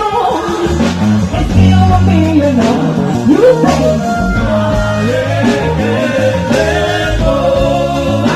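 Live praise band music: bass guitar and drums under singing voices, in a lively upbeat groove.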